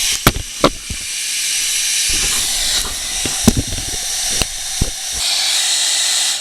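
Handheld hair dryer blowing steadily, melting ice off a snowblower's frozen flywheel. Several sharp knocks and clicks sound over it.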